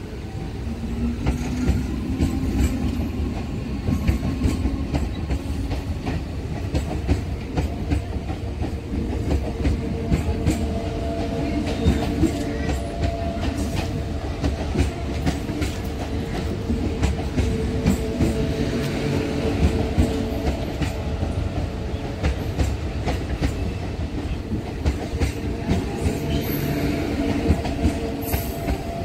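A train running past on the tracks, its wheels clattering steadily over the rail joints, at full loudness within the first second.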